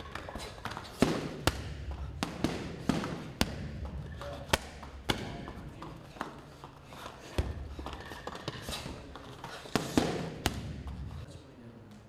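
Boxing gloves striking a hanging heavy punching bag: a string of irregular sharp thuds, about eight loud ones among softer hits, stopping shortly before the end.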